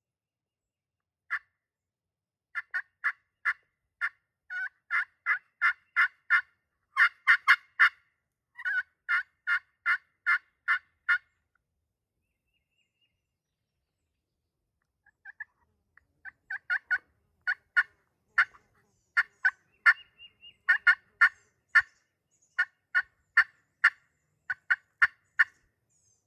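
Hand-run turkey call making hen yelps: a single note, then a long run of short, evenly spaced notes with a quicker burst partway through, a pause of about four seconds, then a second run. It is a hunter's calling meant to make a gobbler answer.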